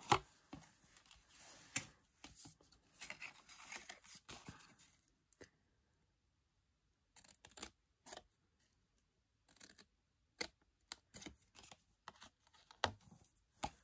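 Small scissors snipping through card, a scatter of short, sharp snips with a brief pause a little past the middle.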